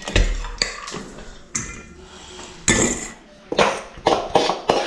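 Steel spoon clinking and scraping against stainless steel bowls as noodles are dished out: a string of short, sharp clinks, irregularly spaced, bunching together in the last second or so.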